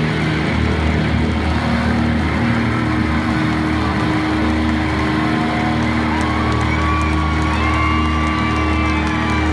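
Live rock band playing loudly through a large arena PA, heard from within the crowd: held bass and guitar notes, with a few gliding high tones over the last few seconds.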